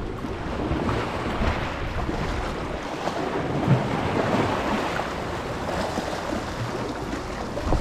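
Small waves washing and splashing over breakwater boulders in surges, with wind rumbling on the microphone.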